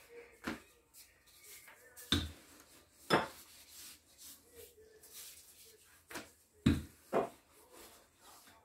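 Wooden rolling pin rolling out dough on a floured countertop: soft rubbing strokes broken by about five sharp wooden knocks as the pin is set down or bumps the counter, the loudest about two, three and seven seconds in.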